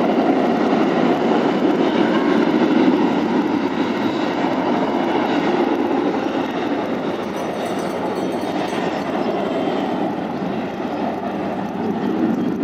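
Jet airliner's engines at takeoff thrust, heard across the airfield as a steady, deep rush of noise that slowly fades as the plane rolls away down the runway.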